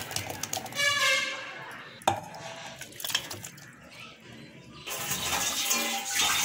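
Kitchen clatter as sliced onions and raw mutton pieces go into an aluminium pressure cooker: knocks and clinks against the metal pot, with a sharp knock about two seconds in.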